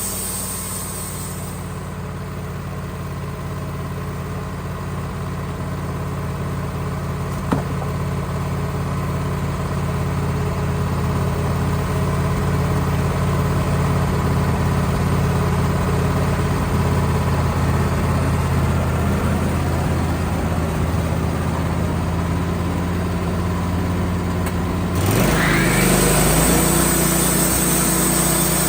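Sawmill engine running steadily; about 25 seconds in it speeds up with a rising pitch and a hiss joins it. A single sharp click about 7.5 seconds in.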